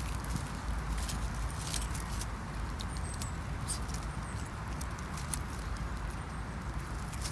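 Dry fallen leaves and grass crackling and rustling as a Yorkshire terrier sniffs and steps through them, many small irregular ticks over a steady low rumble.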